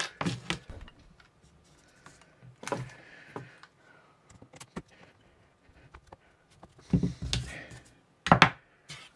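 Scattered clicks, taps and knocks of a hand tool and air-rifle parts being handled on a cardboard-covered bench, with a short rustle about three seconds in and two louder knocks near the end.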